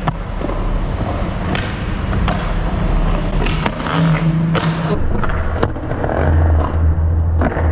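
Skateboard wheels rolling on concrete, a steady rumble broken by several sharp clacks of the board hitting the ground.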